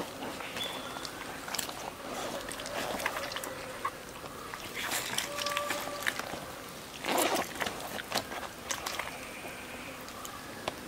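Soft wet handling sounds of a plucked duck carcass being pulled open by hand and its innards drawn out, with scattered small clicks and rustles and one louder rustle about seven seconds in.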